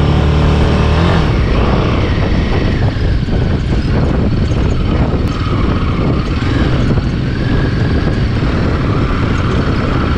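Motorcycle engine pulling away at low speed on a dirt and gravel track, its revs rising in the first second, then running on under heavy wind and road noise.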